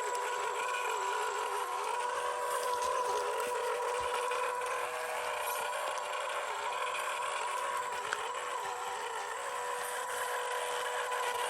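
Electric motor and gearbox of a 1/12-scale MN128 Jeep RC crawler whining steadily, the pitch wavering a little as it climbs.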